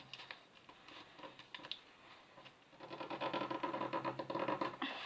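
A sheet of paper being handled and folded for origami: faint crinkles and taps at first, then a louder stretch of rustling and creasing in the second half.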